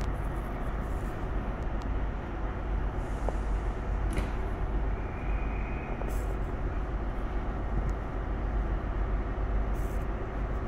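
Steady low hum of a stationary HST125 diesel train, heard from inside a passenger coach while it waits at the platform.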